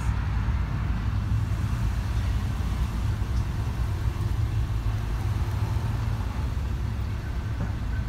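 Steady low rumble of road traffic and engines.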